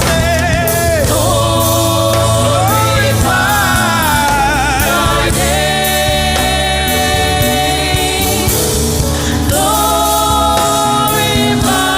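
Gospel band playing while a choir sings, with long held notes over a steady beat.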